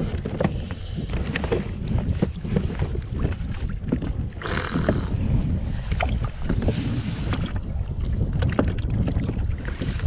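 Strong wind buffeting the microphone on a kayak at sea, with choppy water slapping against the hull in many short splashes and knocks. A brief louder splash comes about halfway through.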